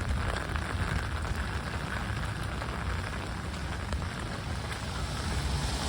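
Steady rain falling and pattering on surfaces, an even hiss with a deep rumble underneath.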